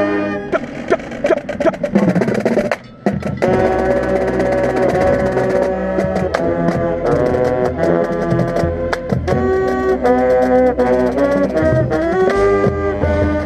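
Marching band playing: drum and percussion hits for the first few seconds, a brief break about three seconds in, then the whole band comes back in with sustained wind notes over the percussion, heard from inside the tenor saxophone section.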